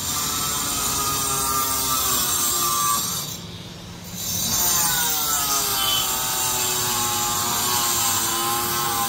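A power tool whining as it cuts, its pitch sliding up and down. About three seconds in it dies away for a second, then starts again.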